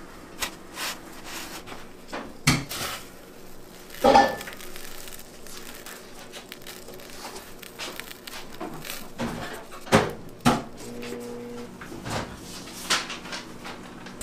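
Kitchen clatter: scattered knocks and rattles of containers and utensils being handled. A few sharper knocks come about two and a half, four and ten seconds in.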